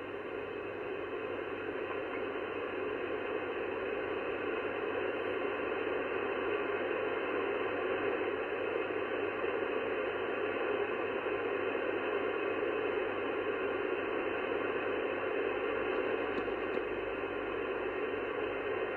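Steady hiss of band noise from an sBitx shortwave transceiver receiving in upper sideband on 27.555 MHz with no voice on the channel, the hiss cut off above about 3 kHz by the receiver's filter. A faint low hum runs underneath.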